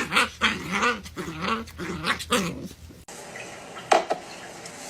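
A dog grumbling and whining in long wavering tones, the noise it makes when it is picked up. It cuts off about three seconds in, and a steady hiss follows, with one sharp knock.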